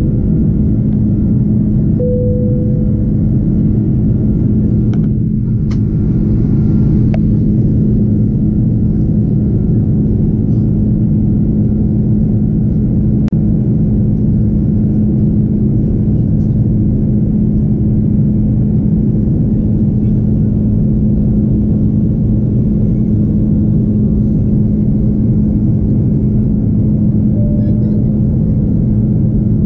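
Steady in-flight cabin drone of an Airbus A330's Rolls-Royce Trent 700 turbofans, heard from a window seat: a constant low rumble with a steady hum over it. A few faint clicks from the cabin come through now and then.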